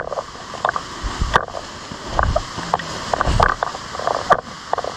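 Steady rain hiss with scattered small knocks and clicks, and a few low thumps.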